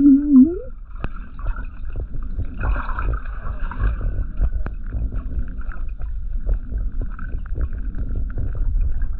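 Underwater sound picked up through a GoPro's housing: a steady low rumble of moving water with scattered small clicks and crackles. A short wavering tone fades out within the first second.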